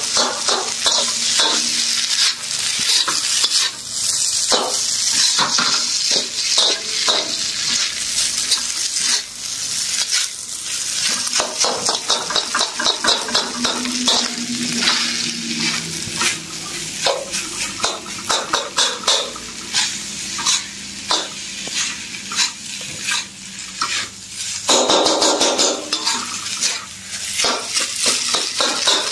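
Fried rice sizzling in a hot wok while a metal ladle stirs and scrapes through it, with many quick scrapes and clinks of metal on the pan over a steady sizzle.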